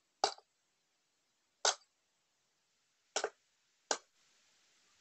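Hammer blows on a steel drift rod driving a worn 6301 front wheel bearing out of a Hero Splendor Plus alloy wheel hub: four sharp knocks, the last two closer together, the last one knocking the bearing free.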